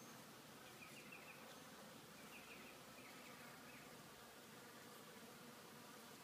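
Faint, steady buzzing hum of bees foraging around a blooming magnolia flower, with a few short high chirps between about one and three and a half seconds in.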